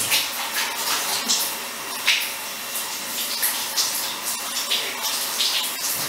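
Shower running: water falling onto a tiled shower floor in a steady hiss, with scattered brief louder splashes.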